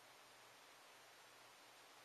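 Near silence: room tone, a faint steady hiss.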